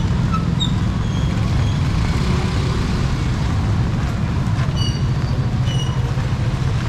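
Steady low rumble of street noise in a typhoon, with a few brief high chirps about two seconds in and again near five to six seconds.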